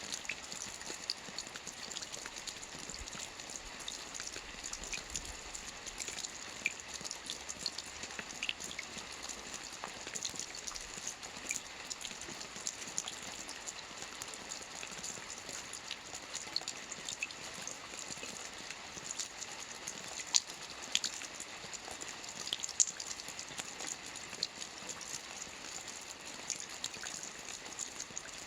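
Steady rain: an even hiss with many individual drops ticking through it, and a few sharper, louder drop clicks about two-thirds of the way through.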